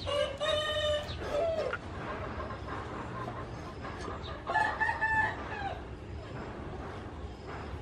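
Rooster crowing twice: one crow at the start, then a second, higher-pitched crow about four and a half seconds in.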